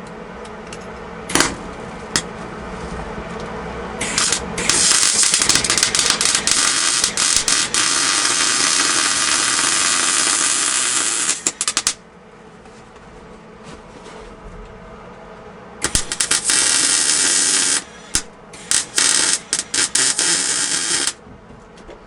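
A hand-held power tool running in a long, loud stretch of about seven seconds. Later it runs again in several shorter bursts, stopped and restarted, over a steady background hum.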